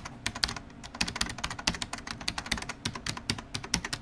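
Computer keyboard typing sound effect: rapid, irregular key clicks.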